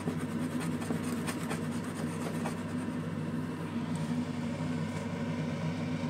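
A steady low mechanical hum, with a few faint clicks in the first couple of seconds.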